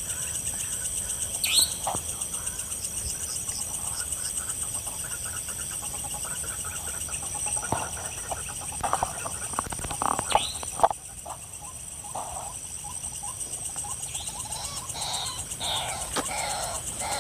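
Repeated clucking calls of a white-breasted waterhen (ruak-ruak), thickest near the end, over a steady high chirring of night insects. A few sharp clicks, about a second and a half in and again around the middle, are the loudest moments.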